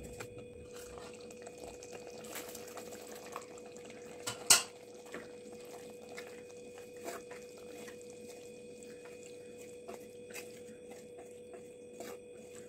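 Wooden spoon stirring a thick sauce and pasta in a clay pot: scattered soft scrapes and clicks, with one sharp knock about four and a half seconds in. A steady faint hum runs underneath.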